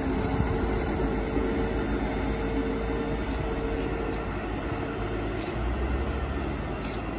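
Heavy tractor diesel engines running steadily, with a higher steady whine that fades out about two-thirds of the way through.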